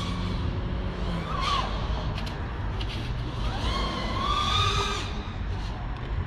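Five-inch FPV freestyle quadcopter's motors whining as it flies, the pitch rising and falling with the throttle and loudest between about three and a half and five seconds in, over a steady low rumble.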